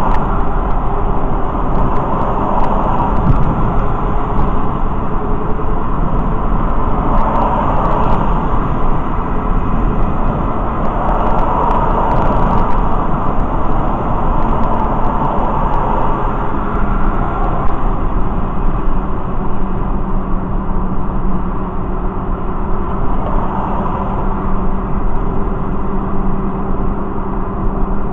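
Steady road noise of a vehicle cruising at highway speed, heard from inside the cabin: tyre rumble and engine hum, swelling and easing now and then.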